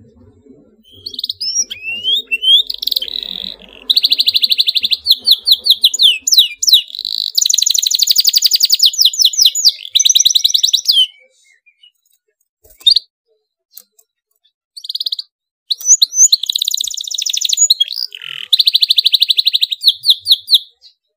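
Domestic canary singing in tight rolled trills of fast-repeated high notes. The song comes in two long bouts with a few seconds of near-pause between them.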